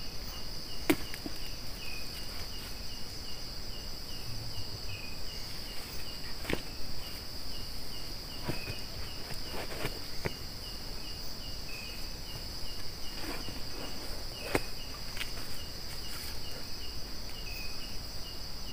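Night insect chorus: a steady high drone with a cricket chirping regularly about twice a second. A few sharp clicks sound over it, the loudest about a second in.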